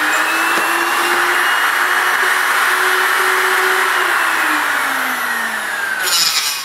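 Electric uPVC corner-cleaning tool, a handheld motor with a cutter in a steel guide, running with a steady whine as it trims the weld bead off a welded uPVC window corner. The whine sags in pitch over the last two seconds, and there is a brief harsh scrape near the end.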